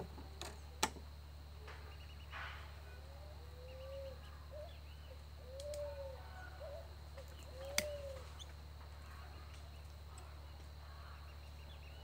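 A dove cooing three times, each call a short tone that rises and falls, over a steady low hum. Two sharp clicks stand out, about a second in and near the eight-second mark, from a hand cutting tool working on the wired bonsai branches.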